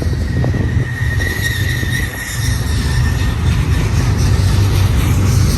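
Double-stack intermodal freight train rolling past with a steady low rumble of wheels on rail. A thin, high wheel squeal rises over it from about half a second in and fades out at about three and a half seconds.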